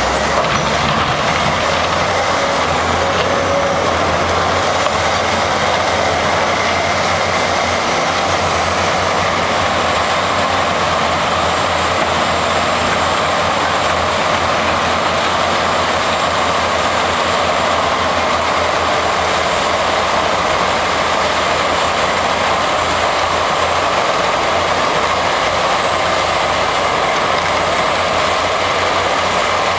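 XE210 hydraulic excavator running steadily: a continuous loud mechanical noise with a low rumble underneath and no breaks.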